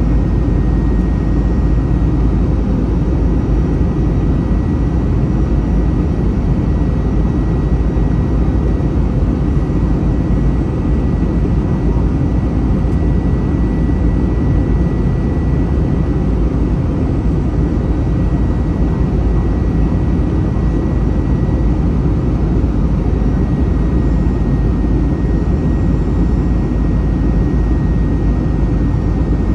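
Steady roar of an Airbus A321's jet engines and airflow heard inside the passenger cabin, heaviest in the low end, with a faint steady high whine above it.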